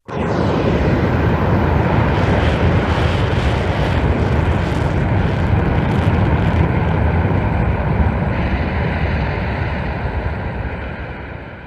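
Gamera kaiju sound effect: a loud, noisy rushing blast without a clear pitch that starts abruptly, holds steady for about ten seconds, then fades out near the end.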